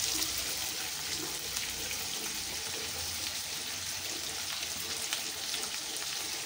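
Eggplant pieces frying in oil in a kadai: a steady sizzle with faint crackles.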